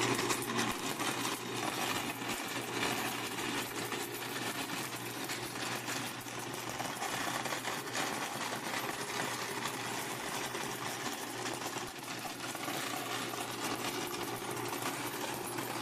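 DIY electric coin-counting machine running, coins rattling through it in a fast, continuous clatter as they are counted.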